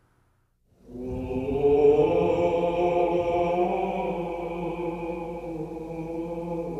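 Choral chant music of long, steady held notes, swelling in after a brief silence and then slowly easing.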